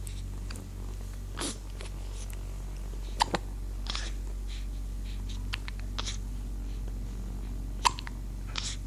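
A baby hiccuping: short, sharp hics every second or two, the loudest about three seconds in and again near the end, over a steady low hum.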